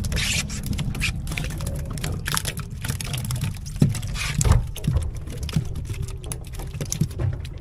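Freshly caught fish flapping and tapping on a plastic boat deck: light, irregular pattering clicks over a steady low rumble.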